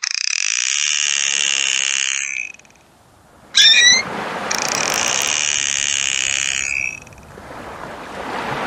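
Dolphin calls: two long, high buzzing squeals of about two seconds each, with a short rising whistle between them. A soft rushing noise follows near the end.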